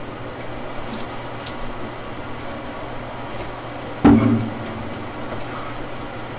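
A classical guitar handled and bumped while being settled for playing: one sharp, hollow wooden knock about four seconds in, with a short low ring from the body, over a steady background hum.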